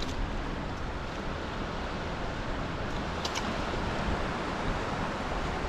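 Waves washing in the surf, with wind buffeting the microphone. Two faint clicks come a little over three seconds in.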